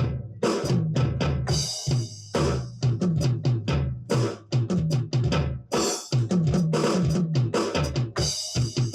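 A ddrum electronic drum kit being played: fast fills around the toms and bass drum, each tom stroke dropping in pitch, with several cymbal crashes.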